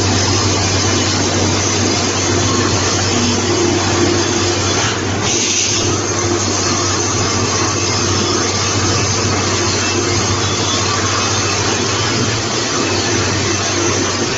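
S60 rebar straightening and cutting machine running: a loud, steady mechanical whir with a low hum underneath, changing briefly about five seconds in.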